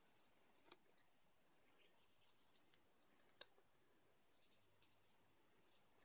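Near silence: a cloth rubbing quietly on the metal base of a CPU cooler as thermal compound is wiped off, with two sharp clicks, a small one near the start and a louder one about three and a half seconds in.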